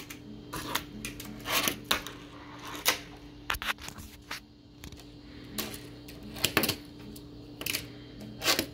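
Fingerboard clacking on a stone countertop: irregular sharp clicks as the little deck and its trucks knock and land on the hard surface, over a steady low hum.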